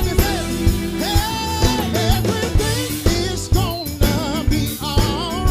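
Live gospel band playing, with a male lead singer holding wavering notes over keyboard, bass and a regular drum beat.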